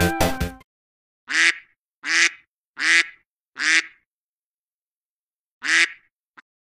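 A duck quacking: four quacks about three-quarters of a second apart, then one more after a pause of about two seconds.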